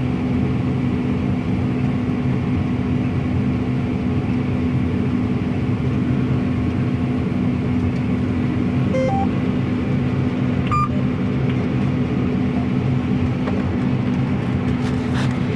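Combine harvester running steadily while harvesting wheat, a constant low mechanical drone, with a couple of short electronic beeps past the middle.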